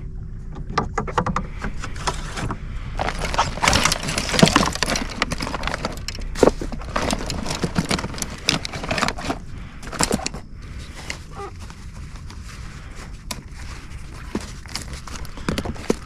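Irregular knocks, clicks and rattles of things being handled on a boat, busiest in the first half and thinning out later.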